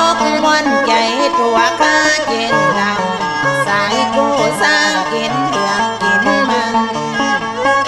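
Northern Thai so long Nan accompaniment: a plucked lute and a bowed fiddle playing an instrumental passage, with the fiddle's melody sliding between notes.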